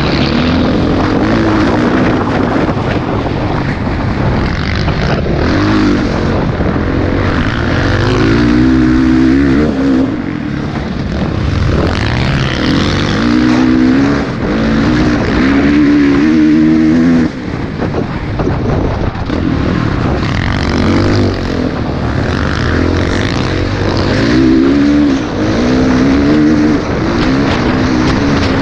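Dirt bike engine under hard riding, its pitch climbing with the revs and dropping back again and again as the throttle opens and closes, with a short drop in loudness about two-thirds of the way through.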